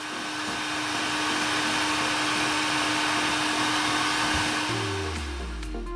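Kaisi hot air rework gun blowing a steady rush of hot air with a steady hum under it, heating the phone's back glass. Music comes in near the end.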